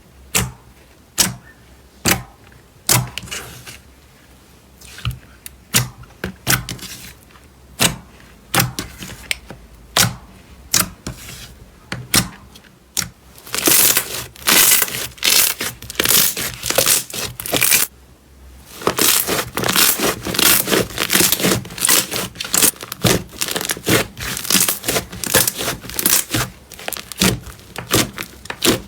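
Slime being squeezed and pressed by hand, giving a string of sharp clicks and pops that thickens into dense crackling about halfway through, with a brief pause shortly after.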